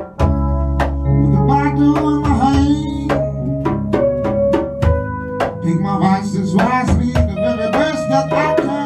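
Live band playing with a steady drum-kit beat, sustained bass guitar notes and keyboard, and a man's voice singing into a microphone over it.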